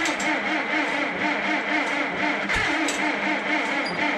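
1952 Farmall Super M tractor's four-cylinder engine running steadily on full choke and about half throttle, just caught on a hard cold start.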